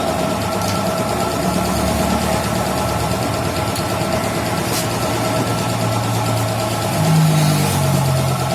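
Motorcycle engine idling steadily, with a brief rise in revs about seven seconds in before it settles back.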